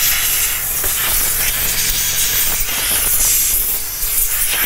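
Compressed-air blow gun hissing steadily as it blows dirt away from around the fuel tank's sending unit.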